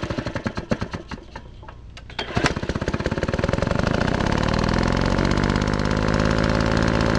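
Freshly rebuilt Tecumseh HSK70 single-cylinder snow thrower engine starting: uneven separate firing knocks for the first couple of seconds, then it catches about two and a half seconds in and settles into a steady run.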